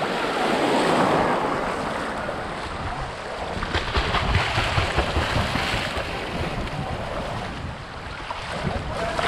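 Small waves washing in shallow surf, with a swimmer's kicks splashing in the middle and wind buffeting the microphone.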